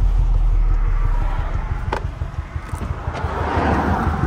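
Volkswagen Golf R (Mk7) on the move, a steady low drone of engine and road noise, with a rougher, pulsing rumble growing near the end.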